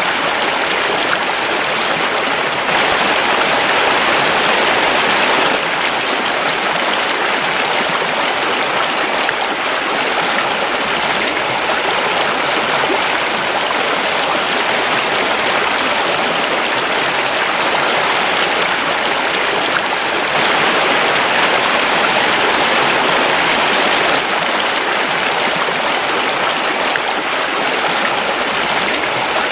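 A forest river flowing steadily: a continuous rush of water, slightly louder for a few seconds at a time.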